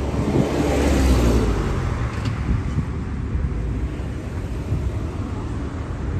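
An engine droning with a deep rumble, swelling about a second in and then easing off to a steady level.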